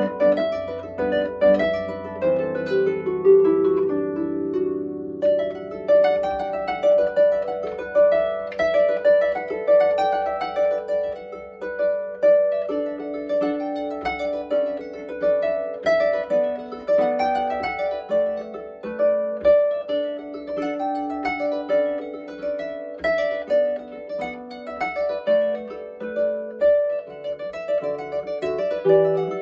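Solo Pilgrim lever harp played acoustically: a flowing tune of plucked notes over a moving bass line, with no break.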